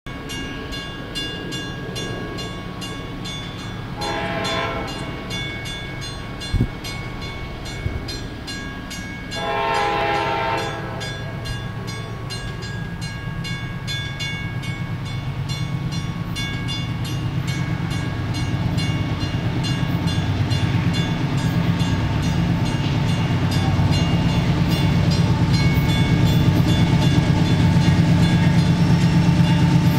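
Approaching CSX freight train's diesel locomotive sounding its horn twice: a short blast about four seconds in and a longer one near ten seconds. A sharp click comes between the blasts. Then the low rumble of the oncoming locomotive grows steadily louder.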